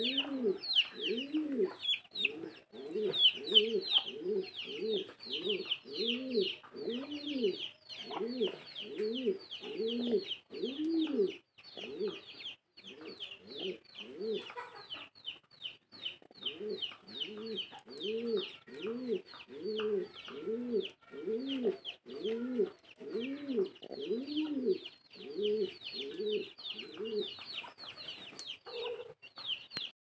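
Baby rock pigeons (squabs) peeping at the nest in a quick, continuous run of short, high, falling chirps. Beneath them a low bird call repeats about one and a half times a second, pausing for a few seconds around the middle.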